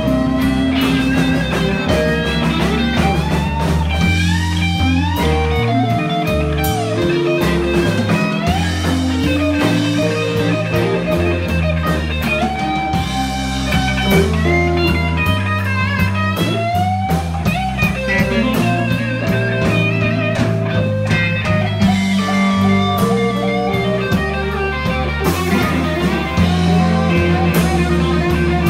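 Live electric blues band playing a slow blues: an electric guitar lead with bent notes over bass guitar and drum kit.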